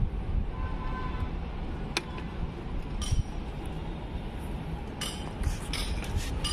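Long plastic water pipe being handled, clicking and knocking lightly against other pipes and fittings. There are a few scattered taps, then several in quick succession about five seconds in, over a steady low rumble.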